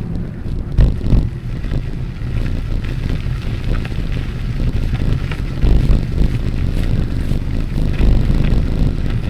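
Wind buffeting the microphone over a steady low rumble of riding along a path, with a few scattered knocks.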